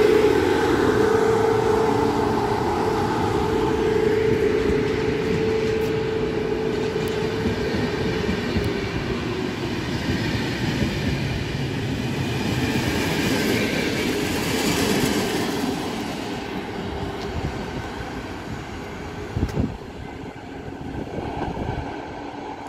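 PKP EP08 electric passenger locomotive pulling a train past, its steady hum carrying over the first eight seconds, then the carriages rolling by with wheel-on-rail rumble and clatter. A couple of sharp knocks come near the end as the train pulls away and the sound fades.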